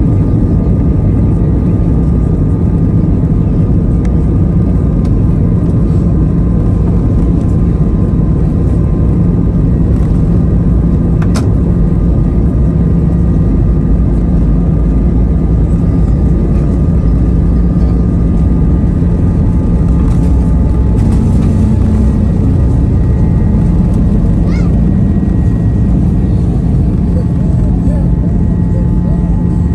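Airbus A320's jet engines at takeoff thrust, heard from inside the cabin through the takeoff roll and climb-out. A loud, steady low rumble carries faint steady whining tones above it, and there is one sharp click about eleven seconds in.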